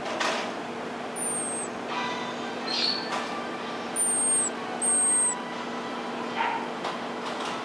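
Infant pygmy marmoset giving short, very high-pitched whistling calls, three of them, each dipping slightly at the end, the last two about a second apart. A steady low electrical hum lies underneath.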